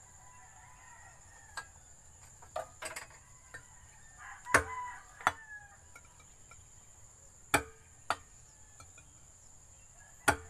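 Sharp knocks of a pointed metal tool struck by hand and driven through the bottom of an empty tin can, punching drainage holes; about ten strikes at uneven intervals, the loudest about halfway through.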